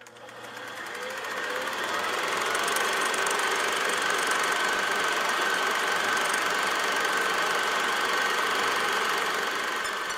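Film projector running, a steady mechanical clatter and whir with a high whine through it, fading in over the first couple of seconds.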